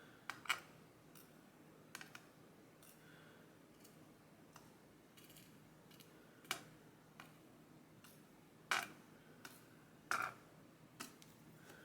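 Small metal clicks and taps of pin springs and tools being worked out of a pin-tumbler lock cylinder during disassembly. The clicks are faint and scattered, with a few sharper ones in the second half.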